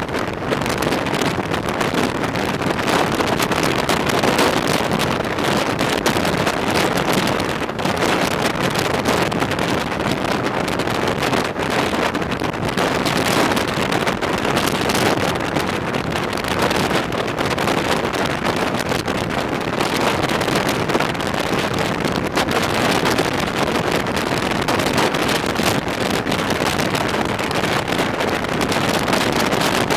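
Loud, steady wind rushing over the microphone at the open window of a moving non-air-conditioned passenger coach, mixed with the train's running noise.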